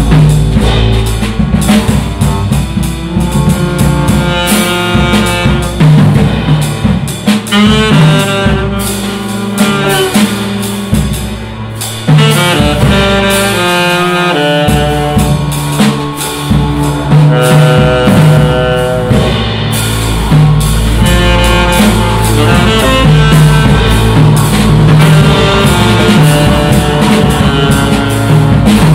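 Live jazz trio: saxophone playing a line of changing notes over double bass and a jazz drum kit.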